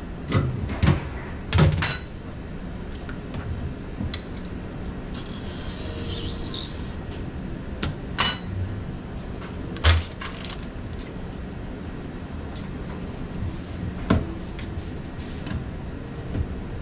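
Sharp knocks and clatter of a kitchen knife and a plastic basket set down on a plastic cutting board during eel filleting, with a brief hiss about five seconds in, over steady background noise.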